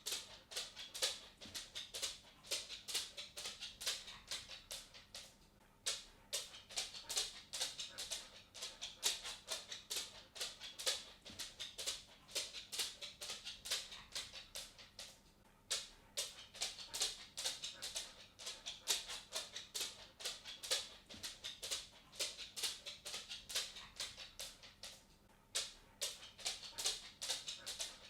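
A cat walking: a quick run of light clicks, several a second, broken by short pauses about every ten seconds.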